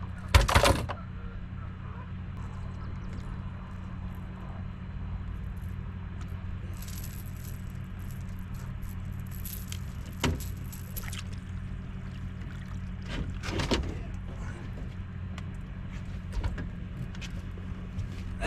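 Boat motor running with a steady low hum, with a sharp knock just after the start and a few lighter clicks later on.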